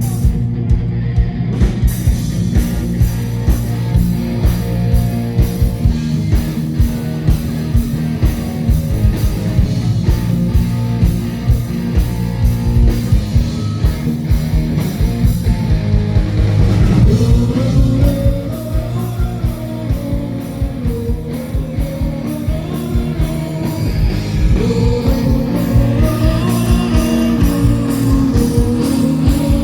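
Live rock band playing: electric guitar over bass and a steady drum beat, with a gliding lead melody in the second half.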